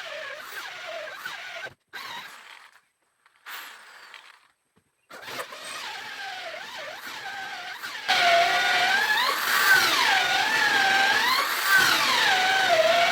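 Electric drill boring holes in plywood: the motor whines, stops about 2 s in, starts again around 5 s, and from about 8 s runs louder, its pitch dipping and rising as the bit loads up in the wood.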